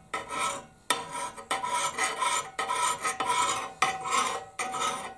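Hand file scraping along an axe blade clamped in a sharpening vise: about six rasping strokes, roughly one a second, as the axe's edge is sharpened.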